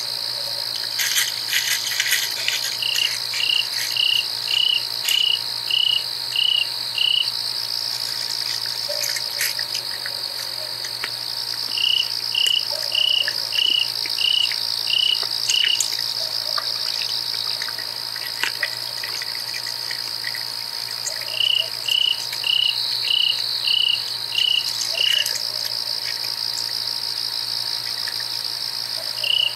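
Night insects calling: a steady high-pitched trill, with a run of about eight or nine evenly spaced chirps at about two a second that comes back roughly every nine seconds. A faint steady hum lies underneath.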